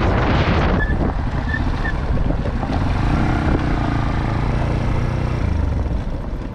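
Bajaj Pulsar NS160's single-cylinder engine running steadily on the move, under heavy wind rush on the microphone.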